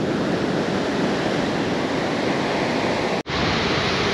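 Steady wash of ocean surf mixed with wind buffeting the microphone. The sound drops out for an instant about three seconds in, then resumes.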